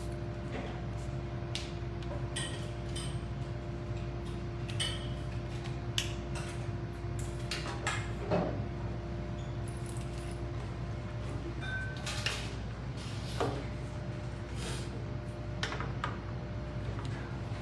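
Scattered small clicks, taps and clinks of medical equipment being handled on a stainless-steel exam table, over the steady hum of hospital machines. A humming tone in the background stops a little past halfway.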